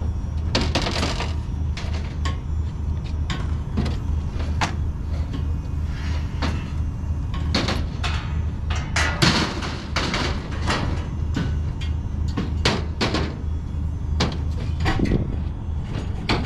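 Irregular clanks and knocks of metal parts being handled during a fairground ride build-up, several a second and never in a set rhythm, over a steady low hum.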